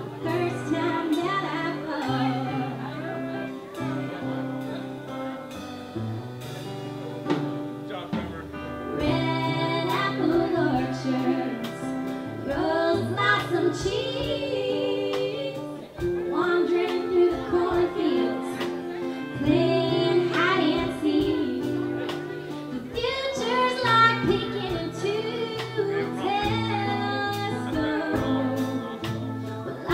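Live band music: bass notes and drum hits under a lead melody line that bends in pitch, with the melody carried by a voice or a lead instrument.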